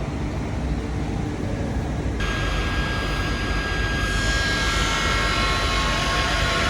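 Vehicle driving, heard from inside the cabin: steady engine and road rumble. About two seconds in, a brighter layer with several steady whining tones suddenly joins it.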